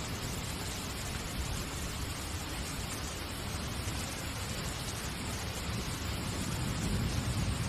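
Steady hiss-like noise across the whole range with a low rumble beneath it, swelling slightly near the end.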